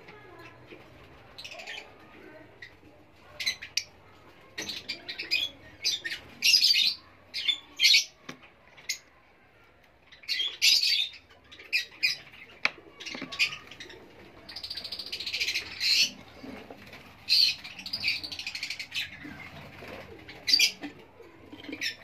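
Caged small parrots chirping and screeching in many short, shrill calls, coming in clusters with brief quieter gaps between.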